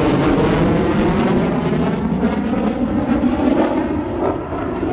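F-15 fighter's twin F100 turbofan engines in afterburner: a loud, continuous jet roar. The high hiss falls away after about two seconds as the jet climbs away.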